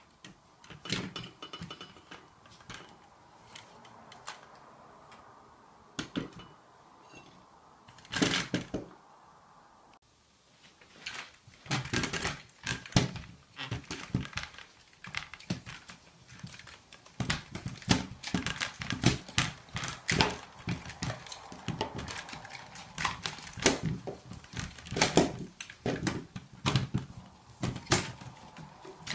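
Black plastic pet bowl stand being handled and adjusted: irregular clicks and knocks of its plastic legs and fittings. They come sparsely at first, then in a dense, busy run from about a third of the way in.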